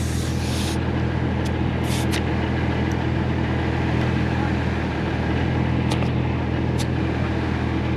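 Infiniti G37's 3.7-litre V6 heard through an ISR Single Exit GT exhaust from inside the cabin while driving at a steady pace: an even low drone over road noise, with a few light clicks.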